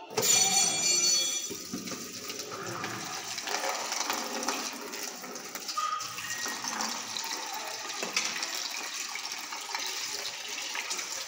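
Tap water running steadily into a steel kitchen sink and splashing over a plastic container being rinsed by hand. It is loudest in the first second or so.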